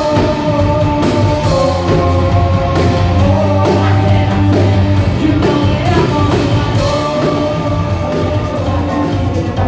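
Live band playing a rock song with drums, bass and a singer, heard loud through the venue's sound system.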